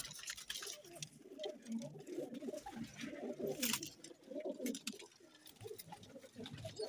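Several domestic fighter pigeons cooing, low overlapping coos throughout, with scattered light clicks and one sharper click a little past halfway.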